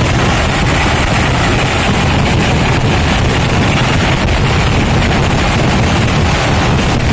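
Dense fireworks barrage from a traditional Kerala temple vedikkettu: countless small bangs overlapping into one steady, loud roar.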